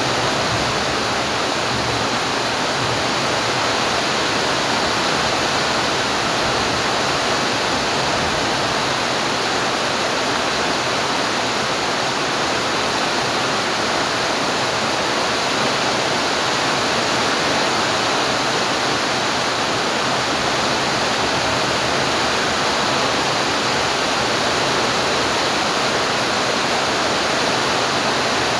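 Steady rain falling, an even, unbroken hiss at a constant level.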